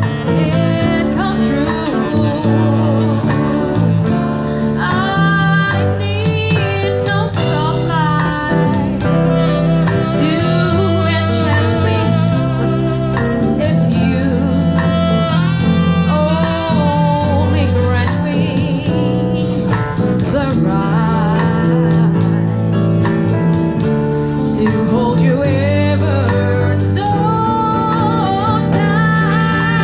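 Live jazz band playing a slow ballad: bass guitar stepping through low notes under guitar, keyboards and drums, with a lead melody line sung or played with vibrato above.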